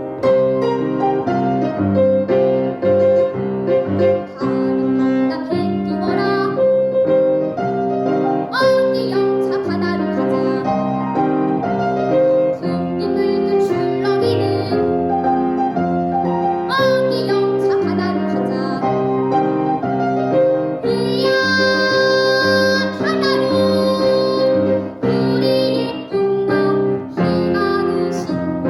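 A child singing a Korean children's song (dongyo) with piano accompaniment.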